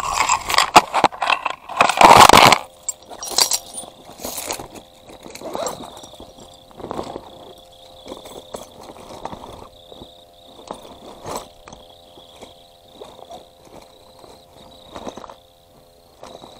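Handling noise on a camera microphone: loud rustling, scraping and knocking for about the first two and a half seconds as the camera is jostled and tipped, then scattered softer rubs and bumps. A faint steady hum runs underneath.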